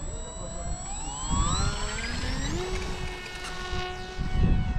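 Electric RC plane's 2212 1400KV brushless motor spinning an 8x4 propeller as it throttles up for takeoff. Its whine rises in pitch for about two and a half seconds, then holds steady at full throttle. Gusty wind rumbles on the microphone underneath.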